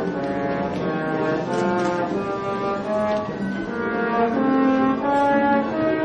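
Orchestral music with brass prominent, playing a melody of held notes that change every half second or so.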